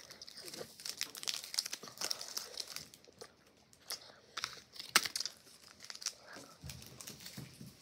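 Airheads candy wrapper crinkling as it is handled close to the microphone, in quick irregular crackles. The crackles are densest in the first three seconds, with a sharp click about five seconds in.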